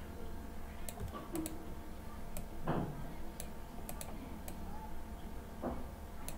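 About eight sharp clicks from a computer mouse and keyboard, scattered irregularly while an object is resized and dragged in a drawing program, over a low steady hum.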